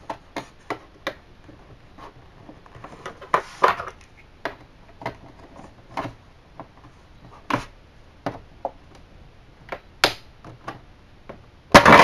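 Snap-fit clips and casing panel of an Acer 5600Z all-in-one computer being pried and worked loose by hand: irregular light clicks and knocks, with a louder clatter near the end.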